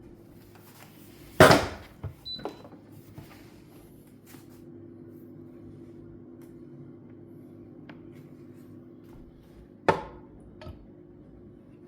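Two sharp knocks about eight seconds apart, the first followed by a few lighter clicks, over a steady low hum.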